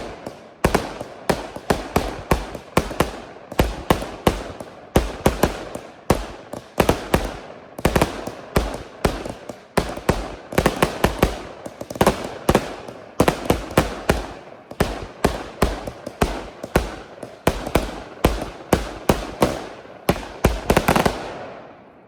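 A multi-shot consumer fireworks cake firing a long string of loud bangs, several a second with short echoing tails, for about twenty seconds before it stops just before the end.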